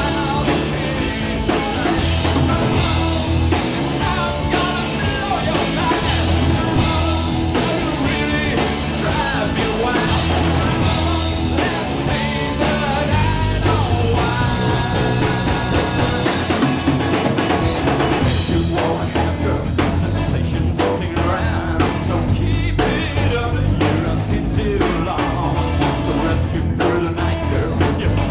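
Garage rock band playing live: drum kit, electric guitar and bass guitar.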